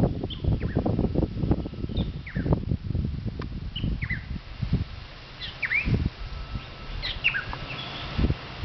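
Birds chirping, with short, quick falling chirps scattered through, over low gusts of wind buffeting the microphone that are heaviest in the first half and ease off after about five seconds.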